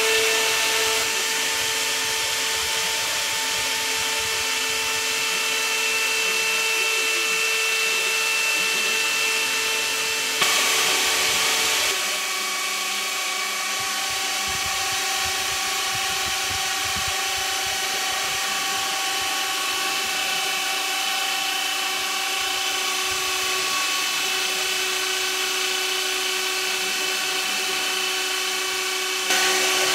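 CNC router spindle running steadily with a whine of several held tones as its end mill machines a laminated wooden pattern. About ten seconds in there is a louder stretch of a second and a half, after which the tones settle at a different pitch.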